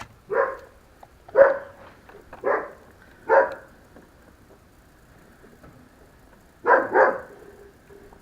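A dog barking: four single barks about a second apart, then a quick double bark after a pause.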